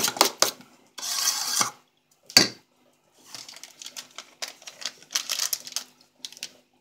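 A metal teaspoon stirring sour cream and sugar in an enamel bowl, clinking and scraping against the bowl in quick, irregular strokes, with one louder clatter about two seconds in.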